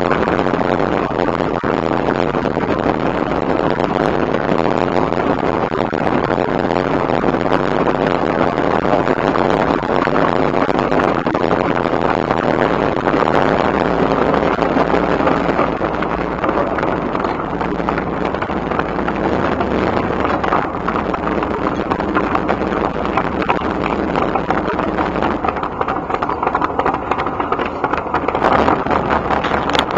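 Shelby Cobra's V8 engine running as the open roadster rolls slowly at low speed, heard from inside the car as a steady, loud engine note mixed with wind and road noise.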